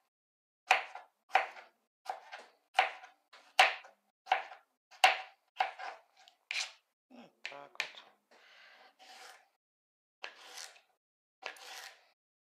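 Kitchen knife chopping a cucumber on a plastic cutting board: a steady run of sharp knocks, about one every 0.7 seconds. After a brief stretch of quieter handling sounds, there are two softer cuts near the end.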